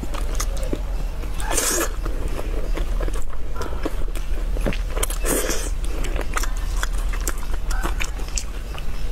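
Close-miked biting and chewing of saucy braised pork: many wet smacks and clicks, with two louder bursts about a second and a half and five seconds in. A steady low hum runs underneath.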